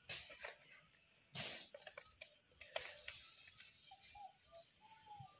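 Faint, steady high-pitched drone of crickets, with a few soft rustles and a sharp tick from hands pressing the vegetable mixture on a steel plate, and a few faint short chirps near the end.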